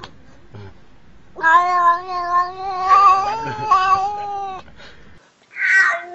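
Black-and-white cat yowling up at the camera: one long drawn-out meow of about three seconds, its pitch wavering. Near the end comes a short harsh, hissy sound.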